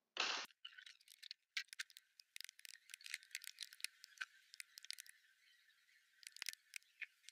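Typing on a computer keyboard: quick, irregular key clicks, a few to several a second, with short pauses. There is one brief, louder burst of noise just after the start.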